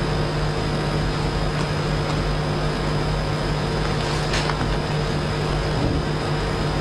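Steady hum with an even hiss, unchanging throughout; a faint brief scrape about four seconds in.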